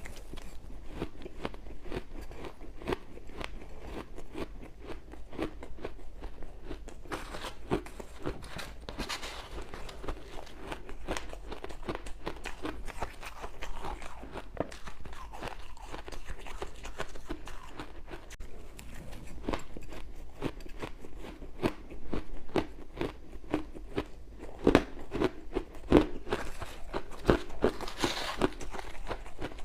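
Ice cubes being bitten and chewed close to the microphone: a continuous run of sharp crunches and crackles, loudest a little before the end.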